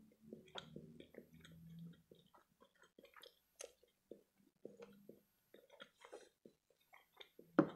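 Close-miked wet chewing of a mouthful of imitation crab stick (surimi) dipped in tartar sauce, with many small irregular smacks and clicks, and one brief louder mouth noise near the end.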